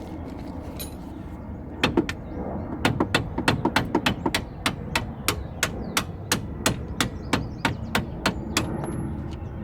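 A run of about two dozen sharp hammer blows starting about two seconds in, quick at first and then evenly at about three a second, stopping shortly before the end.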